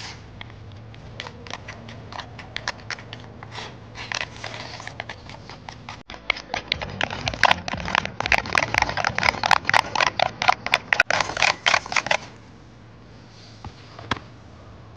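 Wooden chopsticks clicking and scraping against a plastic takeout box as rice is shovelled from the box into the mouth. The clicks are scattered at first, then turn into a fast, dense clatter for about five seconds before stopping abruptly.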